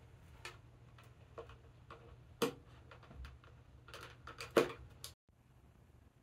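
A small metal hand tool clicking and tapping against a sassafras wood panel as screws are handled and driven by hand, in irregular light clicks with two sharper ones about two and a half and four and a half seconds in. The sound cuts off just after five seconds.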